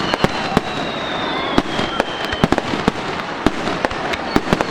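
Aerial fireworks going off in quick succession: many sharp bangs and crackles, with a high whistle that slowly falls in pitch and stops about halfway through.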